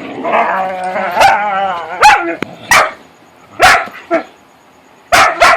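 Whippets' play noises: a wavering, warbling whine-like call for about two seconds, then about six short, sharp barks at irregular intervals.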